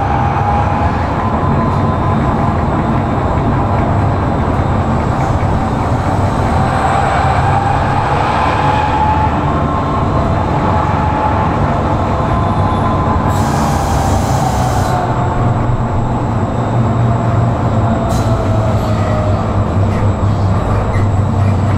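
Tram running on street tracks, heard from inside the passenger car: a steady rumble of wheels on rails, with a whine that slowly rises and falls as it goes. A short hiss comes about two-thirds of the way through.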